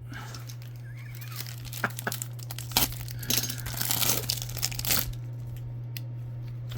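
Plastic trading-card pack wrapper crinkling and tearing as it is ripped open by hand, a run of crackles and rustles that peaks midway and dies down about five seconds in.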